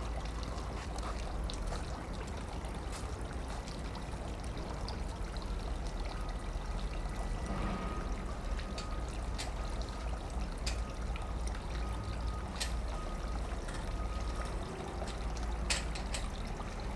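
Steady outdoor background noise: a low rumble under a hiss, with a few faint scattered clicks and a faint held tone in the middle.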